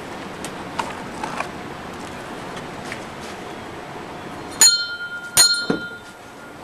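Two sharp metallic clinks about a second apart, the first with a brief ringing tone, then a duller knock, over a steady hiss.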